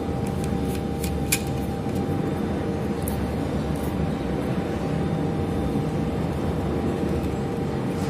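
A steady low background rumble with a faint constant hum, mechanical in character, and a few light clicks of a screwdriver against the plug board's brass terminal screws in the first second and a half.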